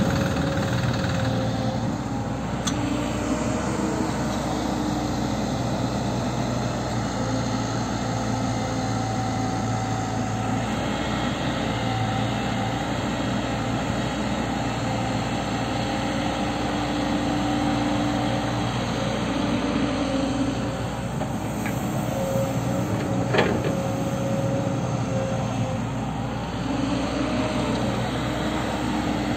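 Diesel engines running steadily: a Sonalika DI 35 tractor idling alongside a tracked excavator working its engine and hydraulics while loading soil into the trolley. One short knock sounds about 23 seconds in.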